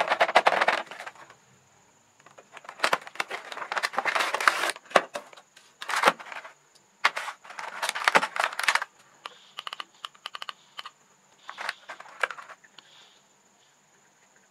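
Toy packaging being handled and opened: several bouts of crackling, rustling plastic and cardboard with sharp clicks, then lighter scattered ticks and rattles in the second half.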